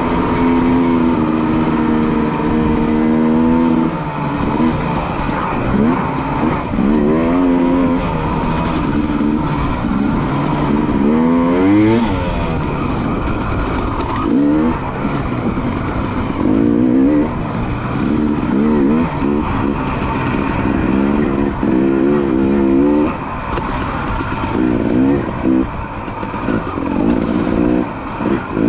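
Dirt bike engine being ridden hard, revving up and down every second or two as the throttle is opened and closed.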